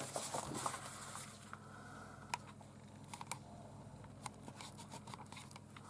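Faint paper rustling in the first second, then scattered light clicks and ticks as a paper instruction booklet is handled.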